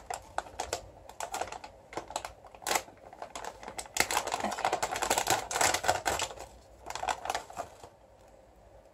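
A chip bag crinkling and tearing as it is pulled open by hand, in a run of sharp crackles that is thickest around the middle and dies down near the end.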